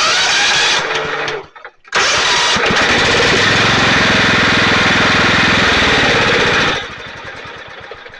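John Deere LX255 lawn tractor's 15 hp engine being started: a short burst that stops after about a second and a half, then a second try about two seconds in that runs loudly and steadily. About seven seconds in the sound drops sharply to a much lower level.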